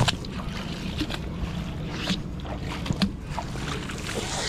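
A fishing magnet on a rope smacks into the river near the start, then is hauled back up through the water with splashing and dripping, with a few more short splashes along the way.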